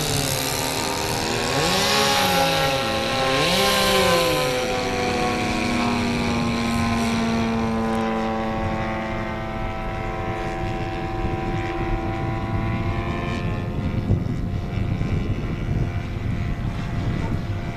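Radio-controlled Yak 54 model aeroplane's engine and propeller running in flight. The pitch swoops up and down several times in the first few seconds as it manoeuvres, then settles into a steadier tone that slowly falls and grows fainter.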